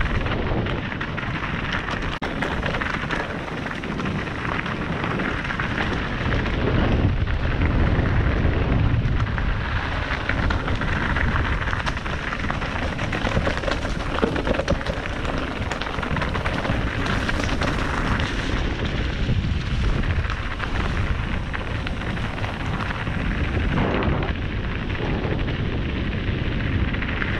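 Mountain bike riding fast downhill on a loose, stony trail: tyres crunching over gravel, rocks and dry leaves, under steady wind rumble on the camera microphone.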